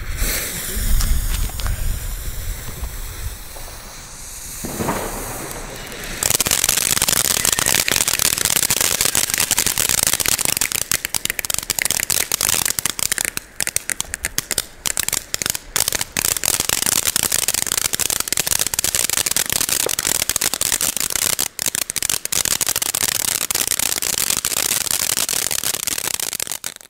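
Funke flower fountain, a small ground firework fountain, lit and burning. About six seconds in it starts a loud, steady, crackling hiss that runs on and cuts off suddenly at the very end.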